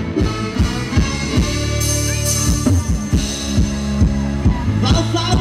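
Live band playing Thai ramwong dance music: a drum kit keeps a steady kick-drum beat under bass and other instruments.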